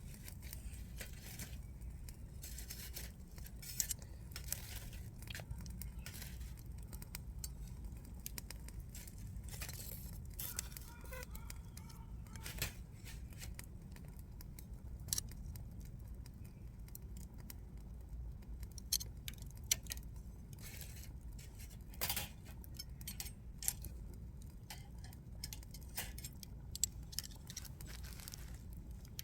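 Damp firewood being handled and worked by hand: scattered light cracks, snaps and scraping, irregular and spread through the whole stretch, over a steady low rumble.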